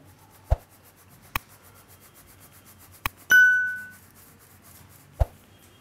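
Faint rubbing hiss of flour being shaken through a steel sieve, broken by a few sharp clicks. About three seconds in, a bright bell-like ding rings out and fades within a second, the notification sound of a subscribe-button animation.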